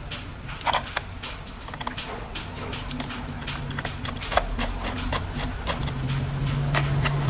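Plastic toy train parts being handled: a string of small sharp clicks and rattles. A low steady hum comes in and grows louder near the end.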